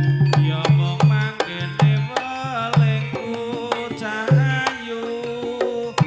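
Live Javanese jaranan gamelan music: kendang drum strokes keep a lively, busy rhythm under repeated low tuned percussion notes, with a melody that bends and wavers in pitch over the top.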